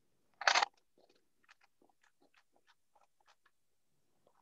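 Scissors cutting brown paper: a louder crunch of paper about half a second in, then a quick run of faint snips as the blades work around the shape.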